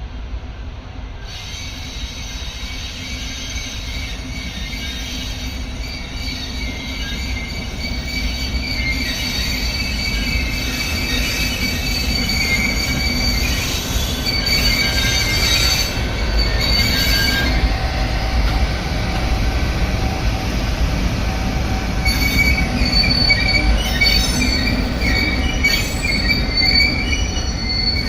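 Wheels of a train with the EF510 electric locomotive rolling along the rails, squealing in steady high tones over a low rumble. It grows louder as the train draws near.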